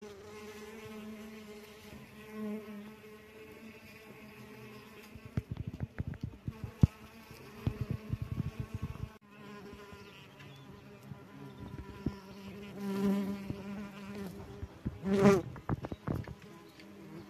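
Paper wasp wings buzzing in flight close by: a low hum that swells and fades as the insect comes near and moves off, loudest near the end. A run of sharp clicks and crackles in the middle.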